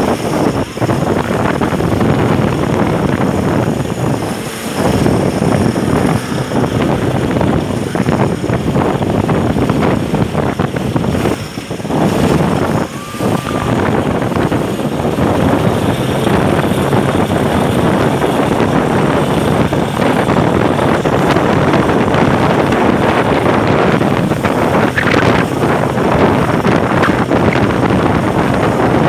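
Motorboat running at speed while towing a banana boat, its engine noise mixed with wind buffeting the microphone and water churning in the wake; steady throughout.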